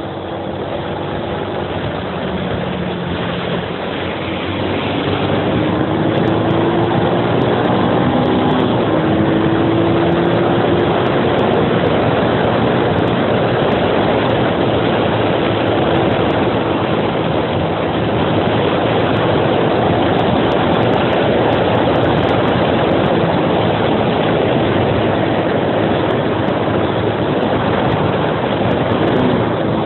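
Suzuki Axelo 125's single-cylinder four-stroke engine running under way as the bike climbs, with heavy wind noise on the microphone. The engine note rises in pitch and the whole sound grows louder about five seconds in as the bike picks up speed, then holds steady.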